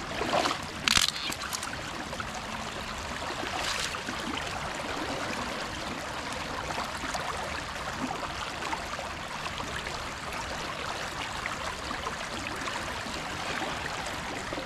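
Shallow creek water rushing and trickling steadily around wading legs, with two sharp knocks in the first second and a softer one near four seconds.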